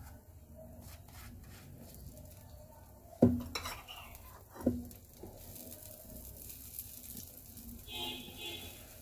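Table knife and buttered buns on a non-stick tawa: two sharp knocks of metal on the pan about a second and a half apart, amid light scraping and handling of the buns on the pan.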